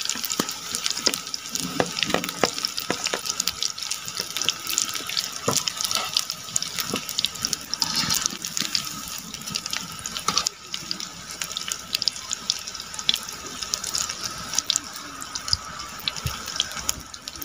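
Cauliflower pakoras deep-frying in hot oil in an iron kadai: a steady sizzle full of sharp crackling pops, easing a little about ten seconds in.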